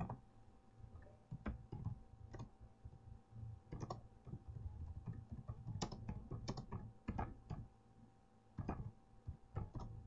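Computer keyboard being typed on: faint, irregular keystrokes in short runs, with a pause of about a second late on.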